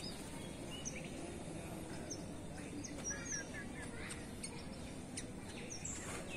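Faint outdoor ambience with small birds chirping: scattered short, high chirps and quick whistles over a low steady background hum.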